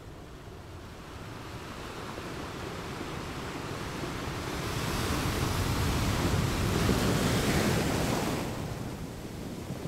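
Small surf washing onto a sandy beach, mixed with wind buffeting the microphone; the sound swells about halfway through and eases again near the end.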